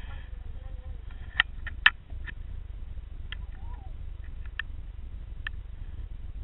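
Steady low rumble picked up through an underwater camera's housing on a sandy bottom, with about six sharp clicks scattered through it; the loudest two come about a second and a half and two seconds in.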